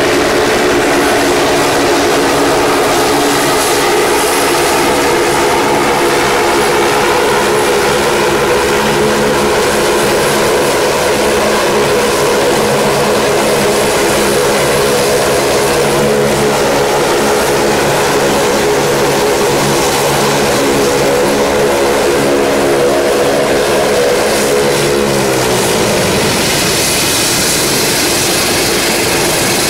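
Saab 340 twin turboprop running at ground idle on the ramp: a steady, loud engine and propeller hum with turbine whine. About 25 seconds in the pitch falls away as the engines spool down at shutdown, leaving a high hiss.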